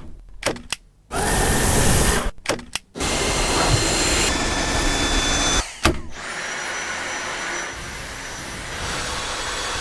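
Cordless vacuum cleaner motor running in short segments that cut in and out abruptly, then running steadily with a faint high whine.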